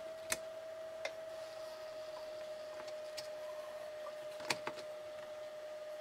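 A few light clicks and taps as hands handle a model locomotive chassis and its wiring, over a steady faint hum.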